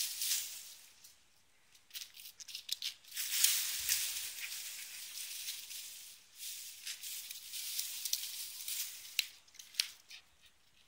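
Lakeland Terrier puppy tearing at a boxwood hedge: leaves rustling and small twigs crackling in short bursts, with brief pauses between.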